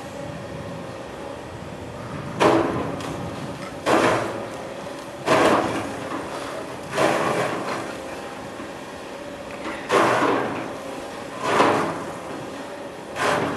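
Hydraulic excavator's bucket striking and breaking apart a large packed-snow sculpture: seven loud, sudden impacts, each dying away quickly, one every one and a half to three seconds, over the excavator engine's steady hum.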